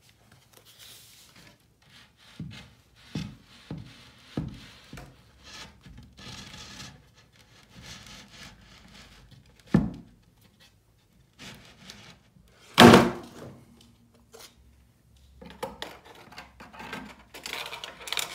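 Wooden knocks and scrapes as a plywood board is lifted and tilted by hand, with several light thunks early on and a heavier thud about ten seconds in. The loudest sound is a crash near thirteen seconds, as the RC crawler rolls off its wheels and falls onto its side, followed by scraping as the board is handled.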